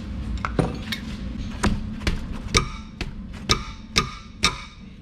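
Sharp metallic clinks and knocks, about nine of them at uneven intervals, some ringing briefly, from tools working on the 19 mm bolts of a rear brake caliper bracket. A steady low hum runs underneath.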